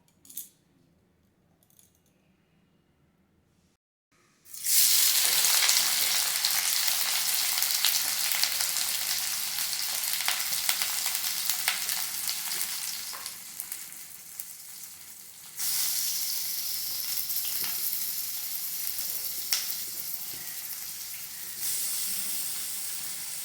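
Chopped onion frying in hot oil in a kadai. After a few quiet seconds with a faint clink or two, a loud sizzle starts suddenly about four and a half seconds in as the onion hits the oil. It eases off gradually and flares up again twice later on.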